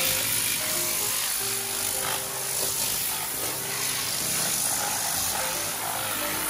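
Compressed-air spray gun hissing steadily as it mists dressing over an engine bay. Background music with short melodic notes plays underneath.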